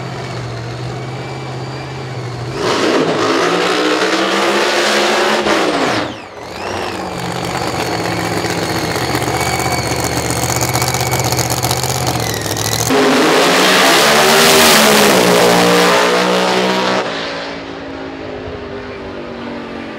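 Drag racing cars' high-horsepower race engines. Two loud full-throttle stretches of about four seconds each, about three seconds in and about thirteen seconds in, with the pitch dipping and climbing. Between them the engines run steadily with a high whine.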